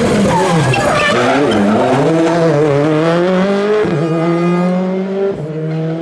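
Rally car engine revving hard through a tight tarmac corner, its note dropping and rising with lifts and gear changes, then climbing steadily as the car accelerates away.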